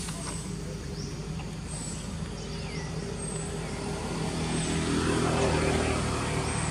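A motor vehicle engine runs steadily and grows louder about four and a half seconds in, as if passing close by, then eases off. Faint short high chirps repeat about every second and a half.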